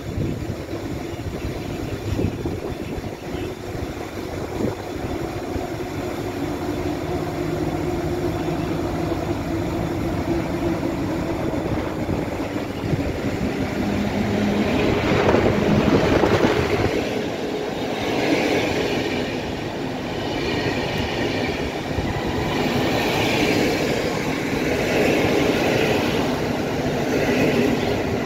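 EP07 electric locomotive hauling an InterCity passenger train past the platform. It grows louder as it nears and is loudest about fifteen seconds in, then the coaches roll by with their wheels clattering over the rail joints.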